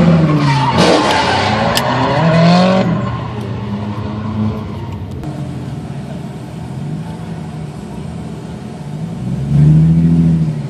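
Sports car engine under the in-car microphone, loud with changing pitch for the first few seconds as the car pulls away, then running quietly at low revs, with a brief louder rev about a second before the end.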